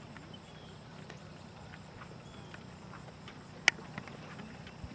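Donkey walking in harness, pulling a two-wheeled cart over grass: soft, light hoofbeats. A single sharp click stands out about three and a half seconds in.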